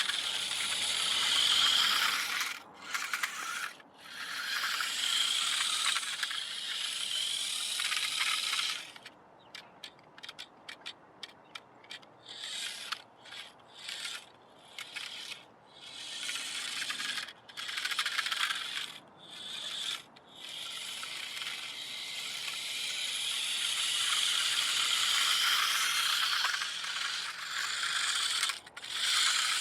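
Small electric motor and gears of a 1980s toy RC truck running as it is driven: a steady run, then a string of short stop-start bursts through the middle, then running steadily again.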